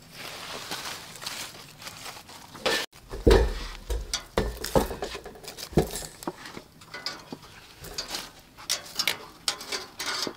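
Metal tongs clicking and knocking as roasted corn cobs are turned on a charcoal grill grate and handled on a metal tray, in scattered irregular taps with a few deeper knocks.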